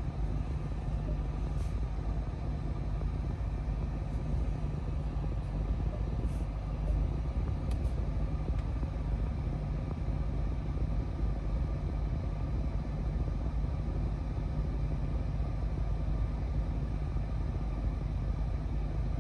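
The Dodge Charger SRT Hellcat's supercharged 6.2-litre HEMI V8 idling steadily, heard as an even low rumble from inside the cabin.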